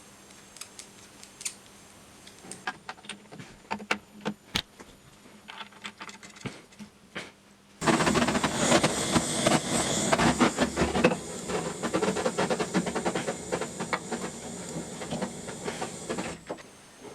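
Homemade compressed-air minigun: a few scattered clicks and knocks, then about halfway through a sudden loud rush of compressed air with rapid clicking, running about eight seconds before cutting off suddenly.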